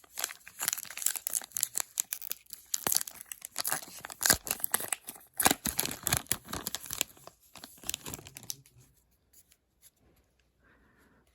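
A foil hockey card pack wrapper being torn open and crinkled by hand, a dense crackling for about eight and a half seconds that then stops.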